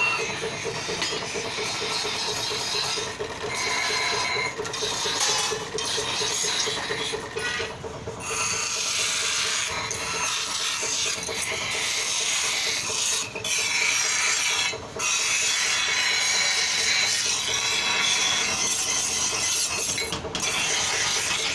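Bench grinding wheels abrading steel masonry-trowel blades: a harsh rasping hiss that dips and swells as the blades are pressed to the wheels. In the first several seconds a steady motor hum is the clearer sound.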